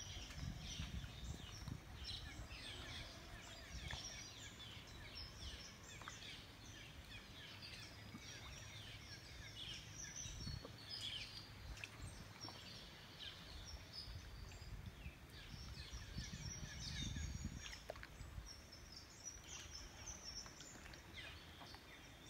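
Birds chirping and calling in many short, separate notes, faint, over a low rumble that swells near the start and again about three quarters of the way through.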